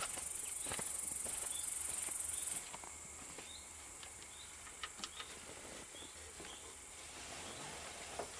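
Light handling noise from gloved hands and an oily rag working around an engine's dipstick tube: scattered faint clicks and rubs. A steady high-pitched buzz runs underneath and drops sharply about two and a half seconds in.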